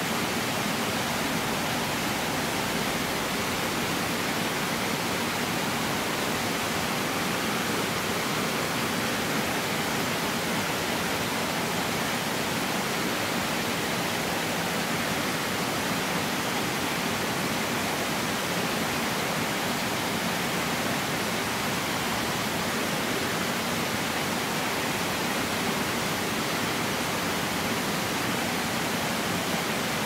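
Hirataki waterfall: water pouring down steadily in a dense, even rush of noise with no breaks or changes.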